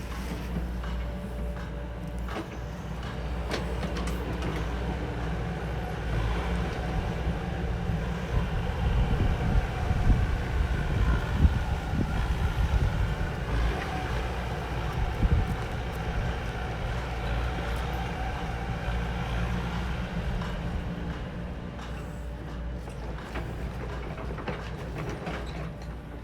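Heavy diesel construction machine running steadily. It works harder in the middle stretch, with knocks and a whine that rises and falls.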